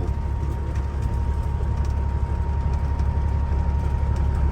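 Semi truck's diesel engine running with a steady low rumble as the rig moves slowly, a thin steady high tone above it.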